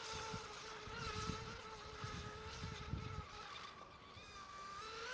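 Distant high whine of an RC Mono 1 race boat's Tenshock EVO 1535 3350kv brushless motor running on the water. The whine holds a steady pitch, dips about four seconds in, then rises again near the end.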